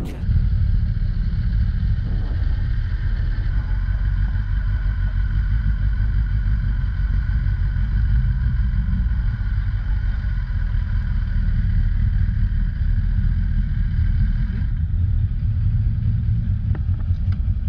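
Kawasaki ZX-10R's inline-four engine running at a steady pace while riding, with heavy wind rumble on the rider's microphone. A faint steady engine note sits above the rumble.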